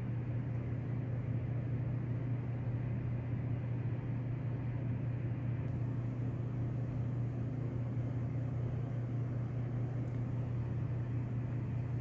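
Steady low mechanical hum with an even hiss over it, unchanging throughout, like a fan or running appliance.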